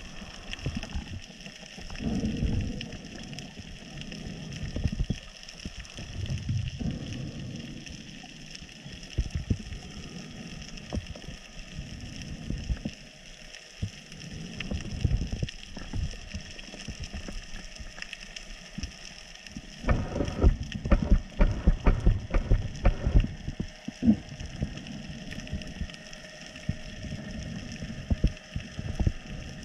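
Underwater sound: an irregular low rushing over a steady faint hiss, with a dense run of sharp clicks and knocks lasting about three seconds, roughly two-thirds of the way through.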